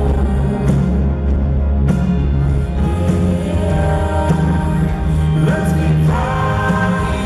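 Live band music played at a concert, with keyboards and drums over a strong, steady deep bass, recorded from the audience.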